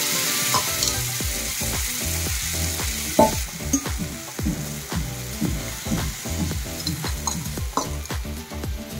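Water and gram flour sizzling in hot oil with fried onions and chillies in a frying pan, as the poured water hits the oil. The hiss is strongest for about the first three seconds, then dies down to a fainter sizzle as the mixture settles.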